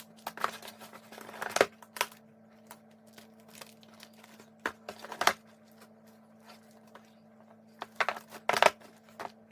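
Packaging crinkling and rustling in several short bursts as it is handled.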